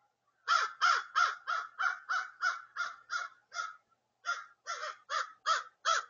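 Crow cawing rapidly, about three harsh caws a second: a run of about ten, a brief pause, then five more.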